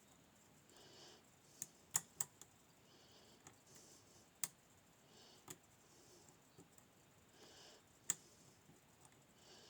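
Lock pick and tension wrench working the pins of a Nemef NF2 lever-style cylinder: a handful of sharp, irregular metallic clicks, the loudest about two seconds in. The picker suspects pin 3 is overset.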